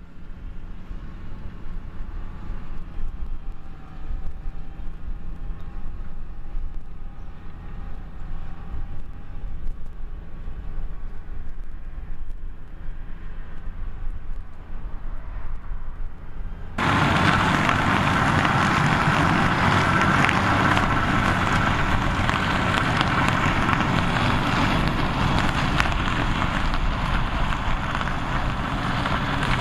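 Fendt tractor ploughing at a distance, its engine a low steady drone. About halfway through it cuts abruptly to something much louder and fuller: a Bergmann manure spreader working close by, its rear beaters flinging out manure while the tractor pulls it.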